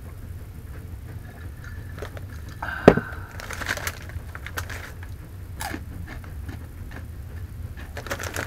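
A single sharp knock about three seconds in, as a drinking glass is set down, then a foil snack bag crinkling and rustling in irregular bursts as it is handled, over a steady low hum.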